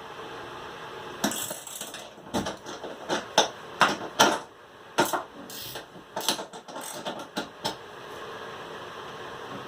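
Wrenches turning a homemade rivet nut setting tool to crank a rivet nut tight in the van's sheet-metal wall: a run of irregular metal clicks and knocks, stopping about two seconds before the end.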